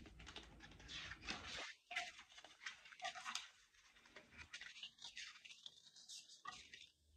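Faint rustling and soft ticks from a hardcover picture book being handled as its pages are turned.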